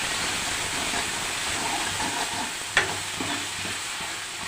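Ground rasam masala of pepper, cumin and garlic frying in oil in a kadai, sizzling steadily as it is stirred, with one sharp tap of the spoon against the pan about three seconds in.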